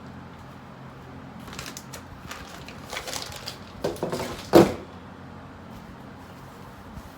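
Indoor handling sounds: scattered rustles and light knocks, ending in one louder knock about four and a half seconds in, over a steady low hum.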